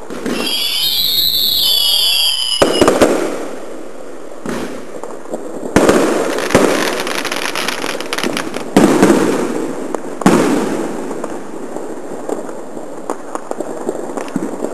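Fireworks going off: two whistles, one rising and one falling in pitch, for the first couple of seconds, then a string of sharp bangs a few seconds apart with crackling between them, tailing off near the end.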